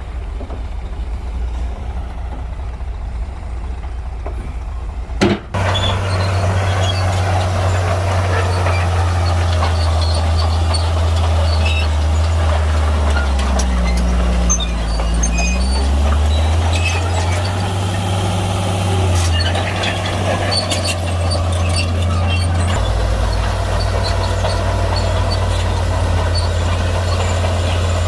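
Heavy bulldozer's diesel engine working, a steady deep drone that dips and recovers in pitch as it takes load, with scattered clanks. The sound changes abruptly about five seconds in, from a lower rumble to the louder engine drone.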